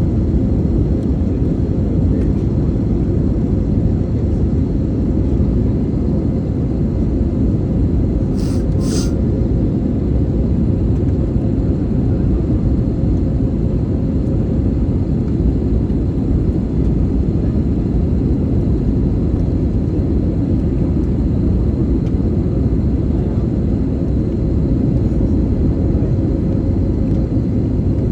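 Steady airliner cabin noise: a loud, even engine and airflow rumble with a faint steady hum. Two short high-pitched tones sound about eight seconds in.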